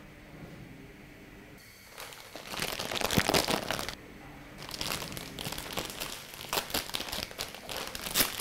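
Plastic snack packet crinkling as it is handled in the hands, starting about two seconds in, pausing briefly around the middle, then crinkling again.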